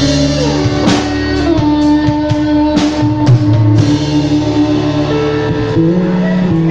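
Band music: guitar over drums, with long held notes underneath.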